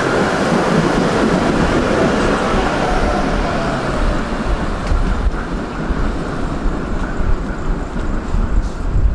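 Tram running on its rails: a steady rumble and rattle of wheels and running gear, easing and becoming more uneven after about four seconds.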